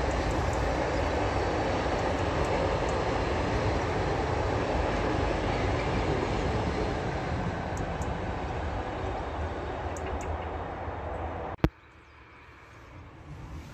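A long freight train running past with a steady, noisy rolling sound that slowly fades as it draws away. A little before the end it cuts off with a sharp click, leaving much quieter outdoor sound.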